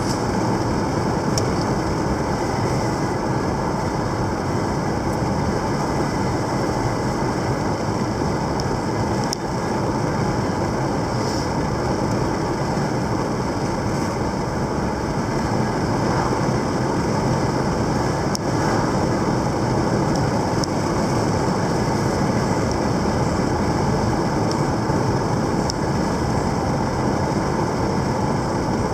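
Steady road noise inside a moving car's cabin: tyres on asphalt and the engine running at cruising speed.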